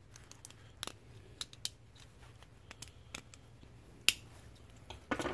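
Scattered light clicks and taps of a Hot Wheels die-cast toy car and its small parts being handled, with one sharper click about four seconds in and a few quick ones near the end.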